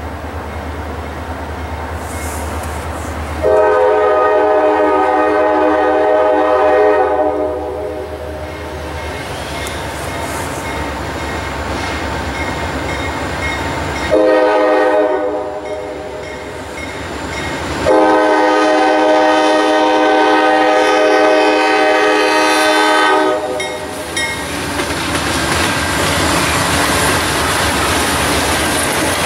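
Diesel freight locomotive's horn sounding for a grade crossing: a long blast, a short one, then another long one, over the ringing of the crossing signal bell. Near the end the locomotives pass, with engine noise and wheel clatter.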